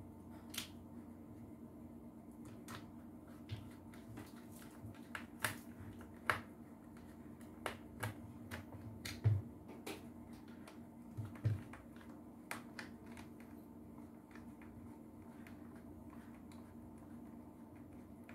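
Irregular small clicks and taps of a screwdriver and hands working screws in a vacuum cleaner's plastic housing, thinning out about two-thirds of the way through. A steady low hum runs underneath.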